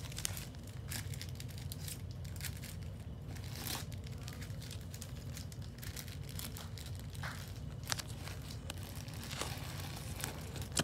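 Yu-Gi-Oh trading cards and a foil booster-pack wrapper being handled, in scattered soft crinkles and rustles, over a low steady hum.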